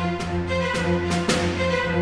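Background music with held notes that change about every half second.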